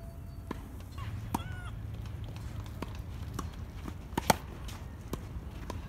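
Tennis ball struck back and forth with rackets in a doubles rally, a string of sharp hits a second or so apart. The loudest is a close racket hit about four seconds in.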